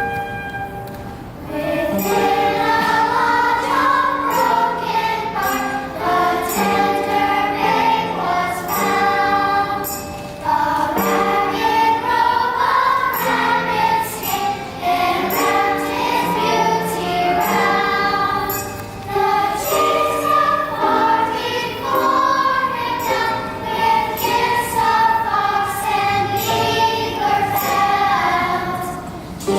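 A choir singing with instrumental accompaniment and light, regular high percussion strokes throughout.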